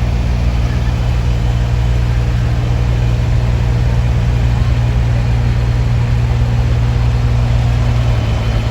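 Large truck engine idling close by, a steady low drone that shifts slightly in pitch near the end.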